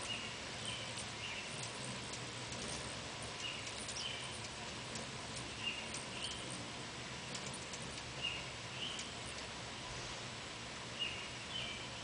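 Hummingbirds at a nectar feeder giving short chirps, mostly in pairs, every two or three seconds, over a steady background hiss with faint scattered ticks.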